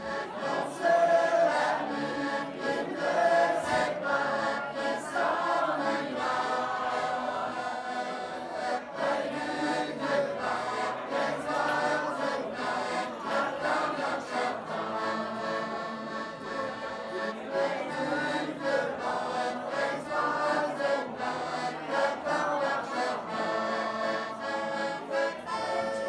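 A small mixed choir singing a French song in unison, accompanied by an accordion.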